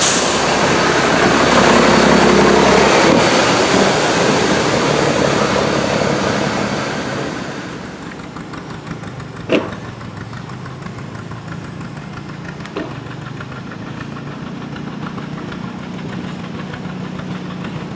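Steam locomotive 643 hissing loudly with steam as it moves off, the hiss fading away after about seven or eight seconds. A low steady engine hum is left, with a sharp clank about halfway through.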